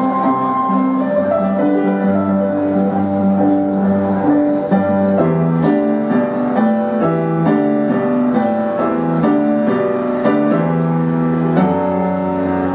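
Keyboard played live: held chords that change every second or so over a low bass line.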